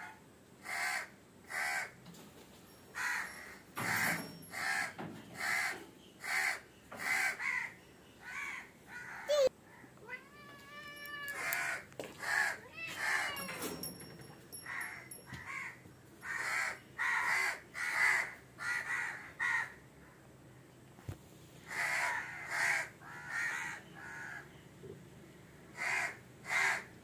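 A crow cawing over and over in runs of short calls, one or two a second, with a break in the middle. One longer rising call comes in about ten seconds in.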